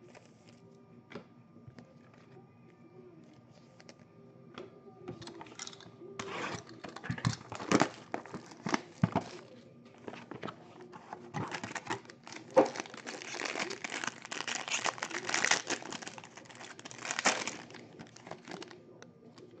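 Foil trading-card pack wrapper crinkling and tearing as it is ripped open by hand. It comes in two stretches of rustling with sharp crackles, after a few light handling clicks.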